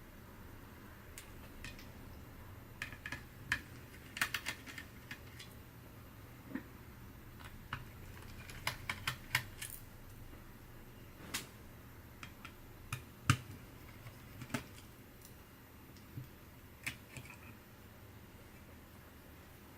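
Irregular small clicks and taps of a laptop's parts and tools being handled as it is taken apart, coming in loose clusters, with the sharpest click about thirteen seconds in.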